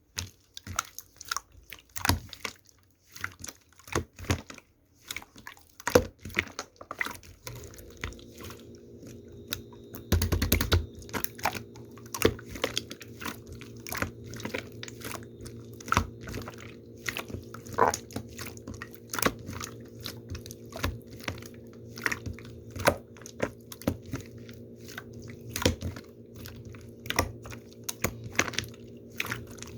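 Irregular close-up clicks, taps and crunches. About seven seconds in, a steady electrical hum of several tones starts and runs on, and there is a heavier thump about ten seconds in.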